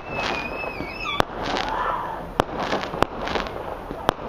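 A consumer firework firing shot after shot: about five sharp bangs roughly a second apart, each followed by a crackling hiss. A wavering whistle fades out about a second in.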